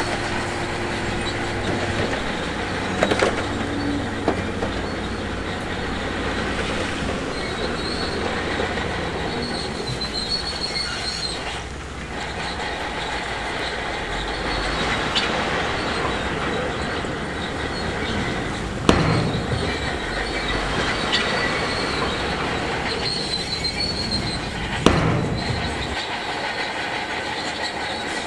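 Crawler bulldozer (Shantui DH17C2) at work, its engine running under a steady clatter and thin squeal from the steel tracks. Sharp knocks of rock stand out about 3 s in, around 19 s and around 25 s.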